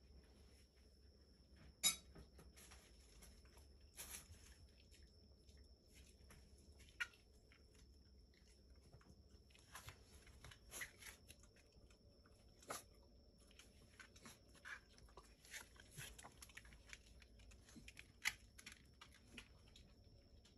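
Near silence broken by scattered faint clicks and taps, a few sharper than the rest, from a Shiba Inu moving about on the floor and a dog food bowl being handled close by.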